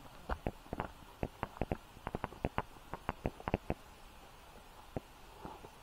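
Footsteps on a stony dirt path: a quick, irregular run of crunches and thumps that thins out over the last two seconds.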